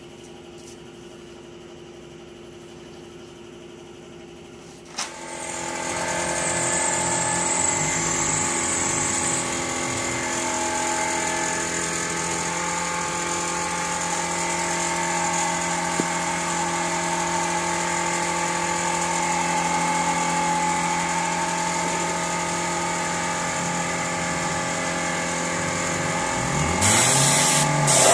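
A machine's motor starts with a click about five seconds in and runs steadily with a hum and a hiss. A louder hiss joins near the end.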